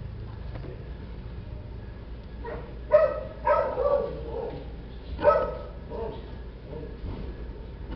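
A dog barking in short yips: a quick run of barks about three seconds in and another loud bark a little after five seconds, followed by a few fainter ones, over a steady low hum.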